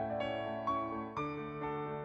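Soft background piano music, gentle keyboard notes changing about every half second.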